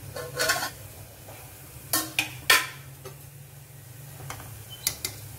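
An aluminium pot and its lid handled, and a metal spatula stirring cooked rice: a brief scrape, then several sharp metallic clinks, the loudest about two and a half seconds in, with a low steady hum underneath.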